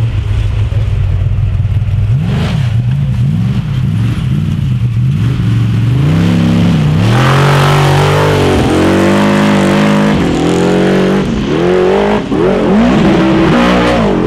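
Formula Offroad buggy's engine revving hard, its pitch climbing and dropping again and again as the throttle is worked. It is louder and higher from about halfway through, as the buggy powers up the sand hill.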